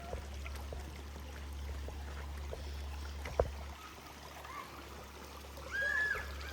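Small stream flowing over rocks, a steady rush of water, with a single sharp click or knock about three and a half seconds in.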